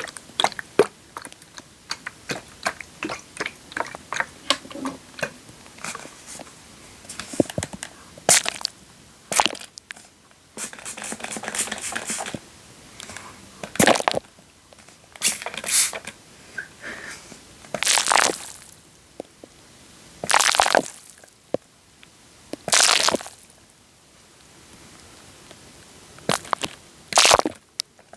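Wet, sticky crackling worked right against a microphone: quick clicks and pops at first, then separate squelching bursts every couple of seconds.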